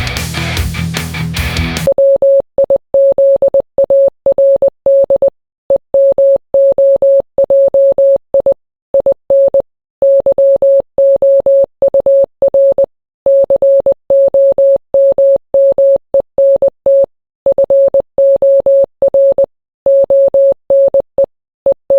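Heavy rock music cuts off about two seconds in. It is followed by a single-pitched electronic tone keyed on and off in an uneven run of short and long beeps, sending Morse code.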